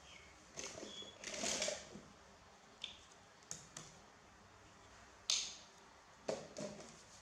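Handling noises of a disposable diaper being put on: crinkling rustles and several sharp clicks and snaps, the loudest a little past five seconds in.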